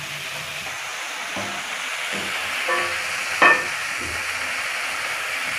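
Food frying in hot oil in a kadhai: a steady sizzle, with one short louder sound about three and a half seconds in.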